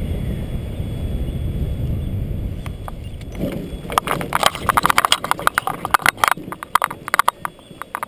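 Wind rushing over the microphone as the paramotor trike glides in with its engine off. From about four seconds in, a rapid, irregular run of knocks and rattles follows as the trike's wheels touch down and roll over the bumpy grass, its frame and propeller cage clattering.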